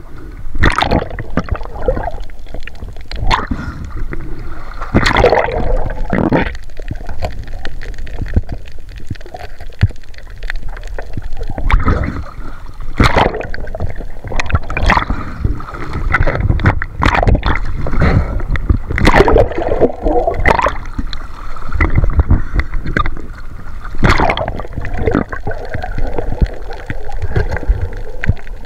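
Seawater gurgling and sloshing close to the microphone over a steady low rumble, broken by irregular knocks and clicks and a few splashy bursts.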